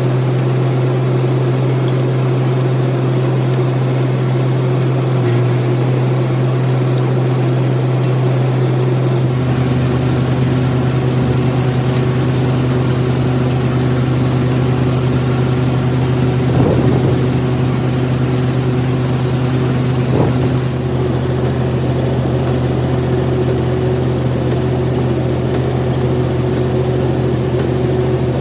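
Lathe running with a steady machine hum; about nine seconds in a deeper low tone joins, and two brief scrapes or knocks stand out later on.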